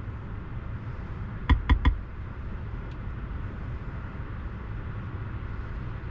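Three quick clicks, about a second and a half in, as keys are tapped on the BYD Seal's touchscreen keyboard, over a steady low hum in the car's cabin.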